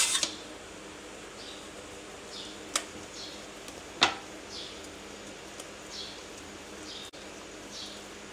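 A metal pizza tray clanks as it is set down, then hands press and stretch pizza dough across the tray with soft repeated rubbing swishes. Two sharp clicks come about three and four seconds in, over a faint steady hum.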